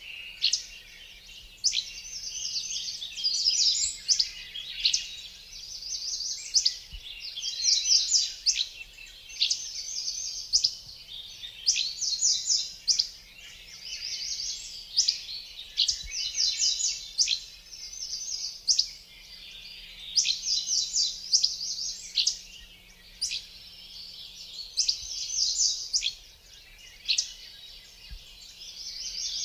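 Birds singing in a steady chorus: quick chirped and trilled phrases of rapid repeated notes, following one another with hardly a pause.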